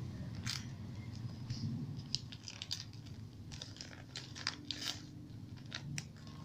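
Gift packaging crinkling and rustling as it is handled and opened: many short, irregular crackles.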